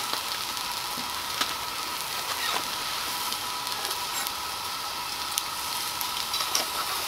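Sausage sizzling steadily in a titanium skillet over a gas canister stove. A spatula clicks and scrapes in the pan now and then.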